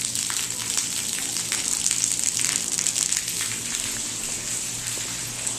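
Heavy rain falling, a steady hiss full of tiny pattering clicks.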